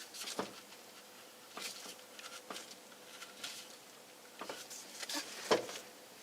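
Quiet handling noise of plastic parts and wiring being worked by hand: scattered light clicks and rustles, with a sharper click about five and a half seconds in.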